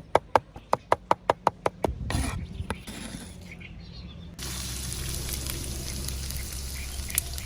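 Rapid, even chopping, about five strokes a second, which stops about two seconds in. Food then starts sizzling steadily in hot oil in a pan from a little past the middle.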